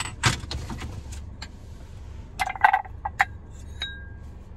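Empty glass candle jars clinking and knocking as they are handled and set down: scattered light clicks, a louder clatter of knocks a little past halfway, and a short ringing tone near the end, over a low steady hum.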